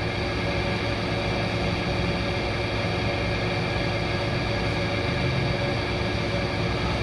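Steady workshop machine hum, a low drone with several steady tones over a light hiss, from machinery running in the shop.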